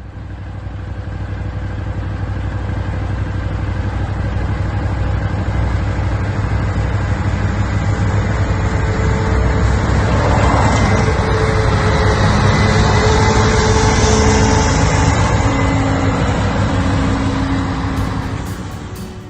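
Large farm machine's engine running steadily under load, with a deep hum and a whine above it. It grows louder to a peak about two-thirds of the way through, then eases off.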